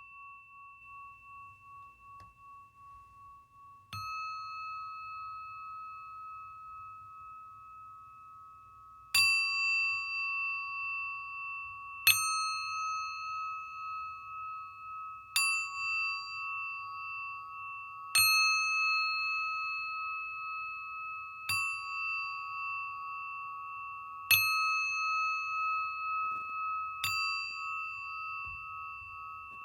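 Singing bowl struck with a mallet, ringing on with long sustained tones that overlap from one strike to the next. The first strike comes about four seconds in while an earlier ring is dying away, then stronger strikes follow roughly every three seconds.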